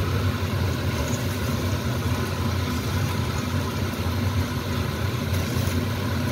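Fish pieces sizzling in hot oil in a wok, with a spatula scraping and turning them, over a steady low hum.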